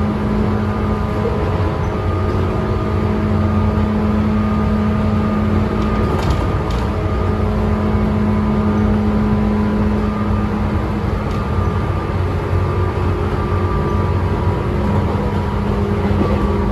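Running sound inside the motor car of a Tobu 9000 series electric train: wheels rumbling on the rails under a steady hum of several fixed tones. This is the chopper control tone that is likened to the JNR 201 series.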